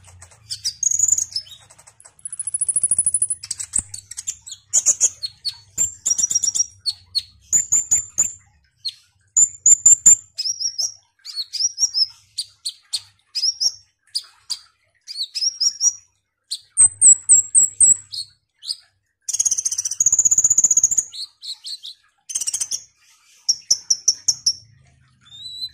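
Male Van Hasselt's sunbird (kolibri ninja) in full song: a fast, varied stream of high, thin chips, twitters, short rising and falling sweeps and trills, in bursts with brief gaps.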